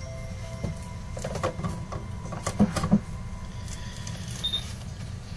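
Laptop charger and its cable being handled and plugged in: scattered clicks, then two knocks close together about halfway through, over a steady low hum.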